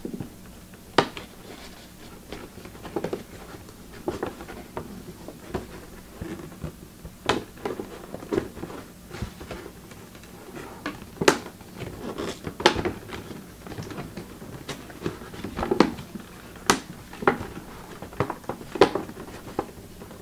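Irregular clicks, taps and rustles of hands working at a small cardboard box and its packaging to get it open.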